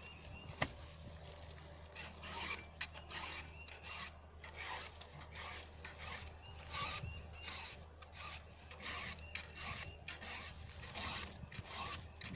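Round file scraping across the cutters of a chainsaw chisel chain in short, repeated push strokes, roughly one or two a second.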